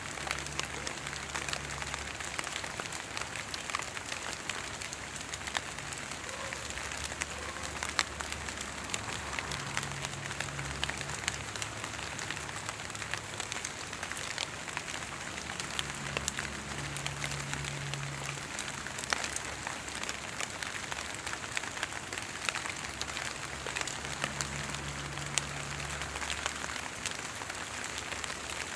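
Fog drip: water droplets gathered from fog on the leaves and needles of tall trees falling onto the foliage below, a continuous patter of many small ticks like light rain. A low hum comes and goes underneath.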